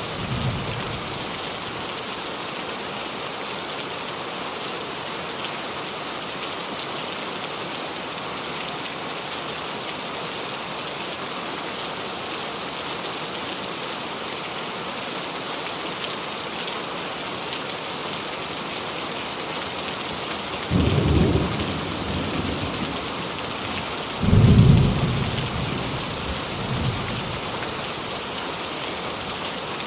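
Steady rain falling on a roof. Thunder rumbles low behind it: one tails off at the start, another comes about two-thirds of the way in, a louder one follows a few seconds later, and a faint one comes near the end.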